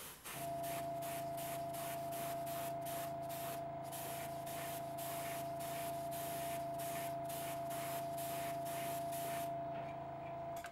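Badger 150 airbrush spraying thinned white enamel in many short bursts of hiss, laying light fading coats on a model coal car, over a steady hum that starts with the spraying and stops just before the end.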